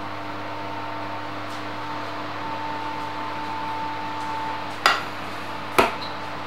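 Fan oven running with a steady hum and a thin whine. Two sharp clicks about a second apart near the end.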